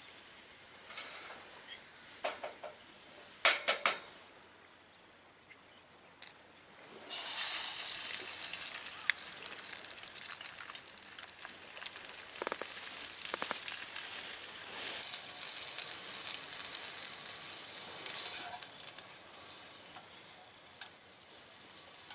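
A few sharp clicks, then food starts sizzling in a hot pan about seven seconds in and goes on frying steadily, with small crackles.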